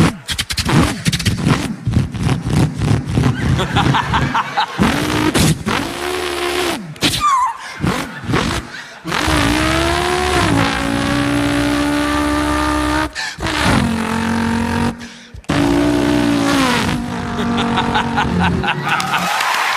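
A man imitating a V8 Holden Torana with his voice: a fast, choppy burble, then revs that rise and fall through gear changes, with a brief high squeal about seven seconds in.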